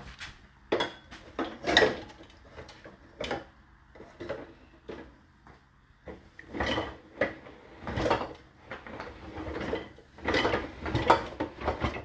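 Stainless steel pans and lids clanking and rattling against each other and against a dishwasher's wire racks as they are moved, in a run of irregular knocks that is loudest in two clusters, about two seconds in and near the end.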